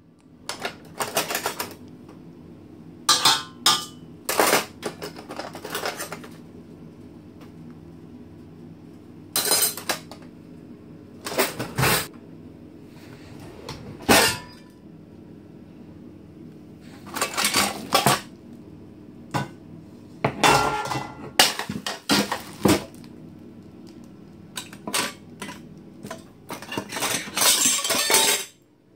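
Kitchen drawers being rummaged: metal cutlery, utensils and pots clattering and clinking against each other in repeated short bursts, with pauses between, and a longer stretch of clatter near the end.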